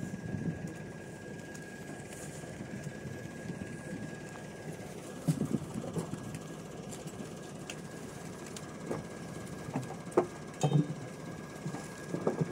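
Massey Ferguson tractor engine idling steadily, with a few short thumps near the middle and near the end.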